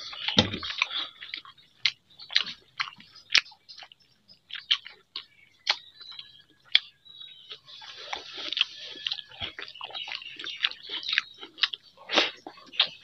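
Close-miked chewing of fried vegetable strips and water-soaked rice eaten by hand: wet mouth smacks, clicks and soft crunches, with a busier stretch just past the middle.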